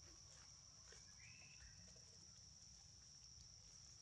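Near silence: quiet outdoor ambience with a steady faint high whine and a few soft rustles.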